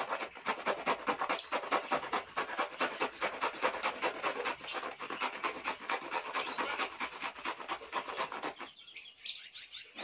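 Cucumber being grated on a flat hand grater: quick rasping strokes, about five a second, stopping shortly before the end.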